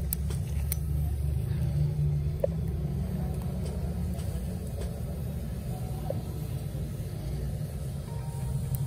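A running engine gives a steady low rumble, with a few faint light clicks on top.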